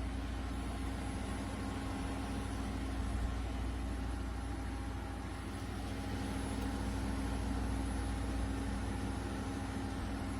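Steady low rumble of a 2002 GMC Sierra pickup with its engine running, heard from inside the cab, with a few steady hums over it.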